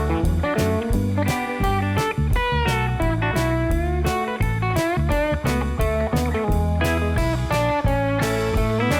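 Background music: an electric guitar playing a bluesy tune over bass and a steady drum beat, with notes bent in pitch.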